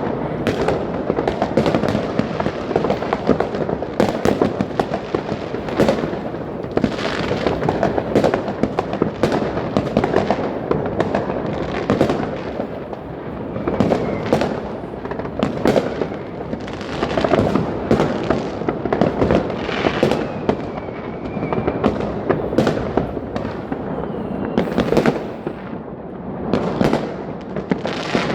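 New Year's Eve fireworks and firecrackers going off all around, a dense, unbroken stream of bangs and crackling, with a faint whistle now and then.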